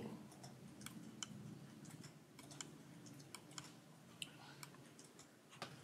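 A dozen or so faint, irregularly spaced clicks of buttons or keys being pressed over quiet room hum, as council members enter their votes on an electronic voting system.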